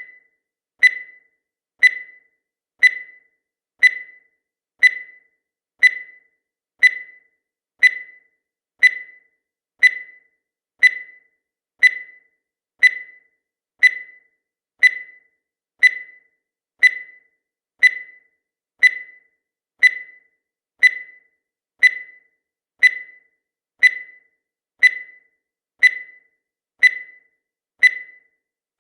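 Countdown timer sound effect: a short, high electronic beep once every second, each one fading quickly, ticking off the seconds.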